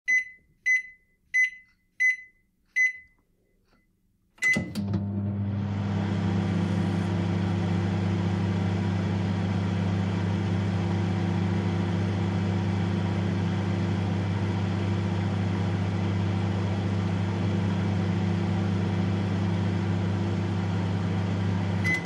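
Microwave oven keypad beeping five times as the buttons are pressed, then a beep and a relay click as it starts. It then runs with a steady low hum and fan whirr, and beeps once more at the very end.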